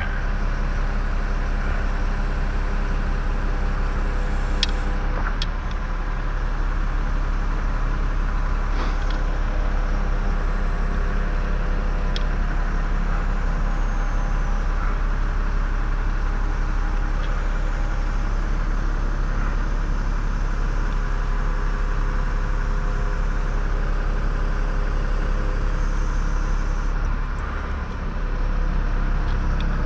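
An engine running steadily at an even speed throughout, with a few faint clicks.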